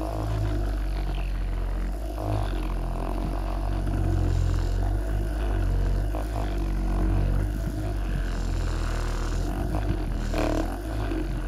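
Percussion massage gun running with its head pressed against the sole of a bare foot: a steady low motor drone.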